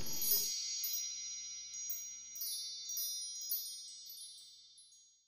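Shimmering chime sound effect: a cluster of high ringing tones that fades out over about five seconds, with a few brighter sparkling accents along the way.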